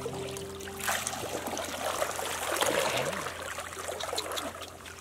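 Shallow stream water splashing and sloshing as a woven bamboo scoop basket is swept through it by a wading person. It starts about a second in, is loudest in the middle and fades toward the end.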